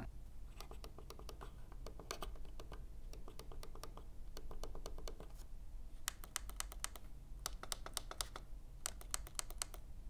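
Forward and back thumb buttons of the Keychron M6 ergonomic wireless mouse clicked over and over, a run of small plastic clicks, some louder than others: its side-button click sound is inconsistent.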